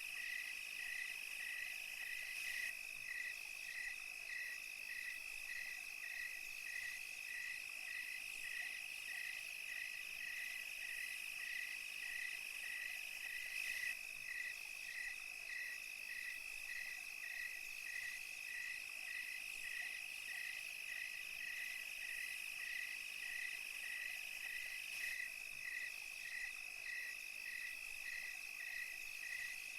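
Night chorus of crickets and other insects: a steady high-pitched trill, with a regular chirp repeating about three times every two seconds over a thin high hiss.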